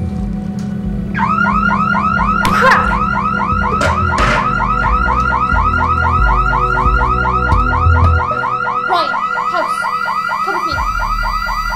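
Electronic alarm sounding, a fast run of repeating rising chirps that starts about a second in, over a low music drone. Two sharp hits come about two and a half and four seconds in.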